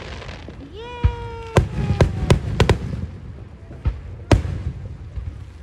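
Aerial fireworks shells bursting overhead: a string of sharp bangs, several in quick succession in the middle, over a low rumble. A held pitched tone, sliding up and then steady, sounds for about two seconds near the start.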